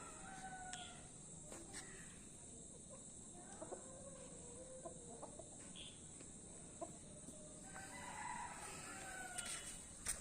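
Aseel chickens calling faintly: a rooster crowing and hens clucking.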